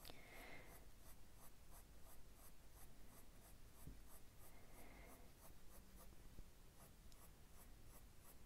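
Faint scratching of a Prismacolor Peach soft-core coloured pencil on paper, laid down in small, quick shading strokes, about three or four a second.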